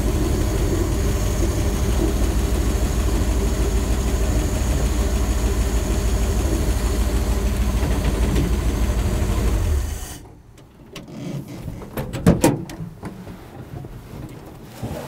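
1965 Dodge A-100's 318 V8 running at low speed, in need of a tune-up after 22 years of sitting, then shut off about ten seconds in. A couple of seconds later come sharp clunks of the driver's door latch as the door is opened.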